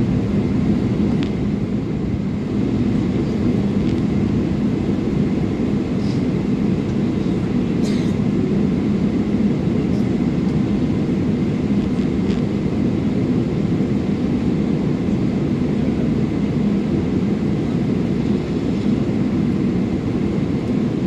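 Steady low rumble in the cabin of a Boeing 777-300ER on the ground, its GE90 engines running at taxi power, with a few faint clicks.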